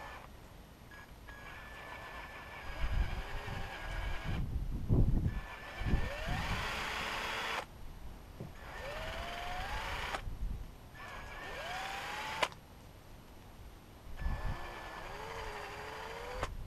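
Cordless drill running in four bursts, its whine rising in pitch each time the motor spins up, with a few low knocks in the first half.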